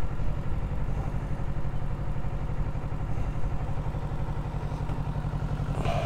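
Kawasaki Ninja 650's parallel-twin engine idling steadily, heard from on board the motorcycle.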